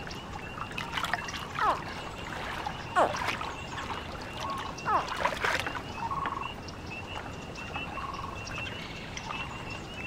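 American alligator hatchlings calling: several short, high chirps that slide down in pitch, a second or two apart, over light trickling water.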